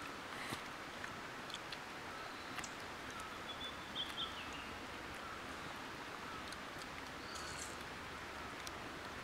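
Quiet forest ambience: a steady hiss with birds calling, including a short high call about four seconds in and fainter, repeated lower calls, and a few scattered light clicks.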